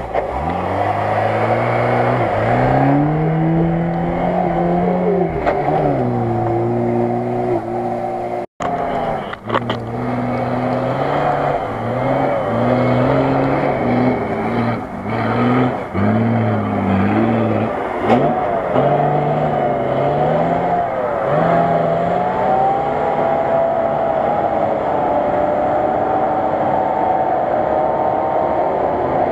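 Off-road 4x4 engines revving hard on a sandy course, the pitch climbing and dropping again and again as the drivers shift gears and work the throttle. There is a brief break about eight seconds in. From about eighteen seconds on, a higher, steadier engine note takes over.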